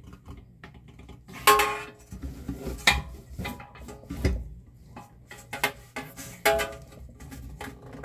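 A steel wrench clanks against a stuck nut on an industrial blender's cutter base, held in a bench vise. It makes a string of sharp metallic clicks and knocks, several of them ringing briefly, as the very tight nut is forced loose.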